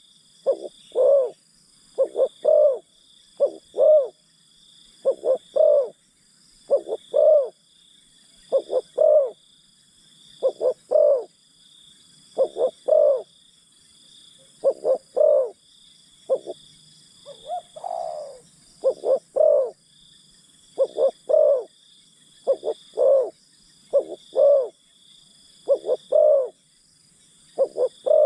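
Spotted dove cooing: a three-note coo phrase repeated about every two seconds. A steady high insect buzz runs underneath.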